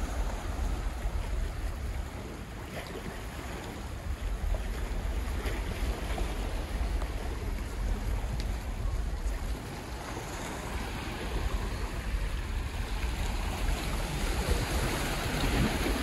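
Black Sea waves washing over a rocky shoreline, with wind buffeting the microphone in a steady low rumble.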